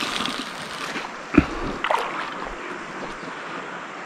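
River water sloshing and lapping close by, a steady rushing haze, with two short splashy knocks about a second and a half and two seconds in.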